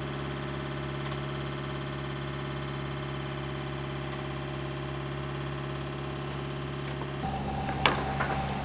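Sailing yacht's inboard engine running steadily while motoring. About seven seconds in the sound changes abruptly, and a sharp click follows.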